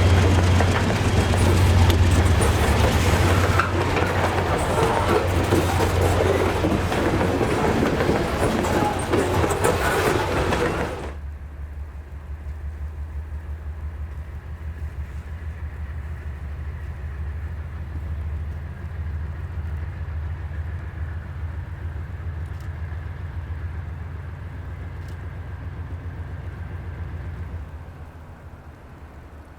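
Loaded coal train rolling past, with loud clatter and rumble from its cars and wheels. About eleven seconds in the sound drops suddenly to a quieter, steady low diesel rumble, which fades further near the end.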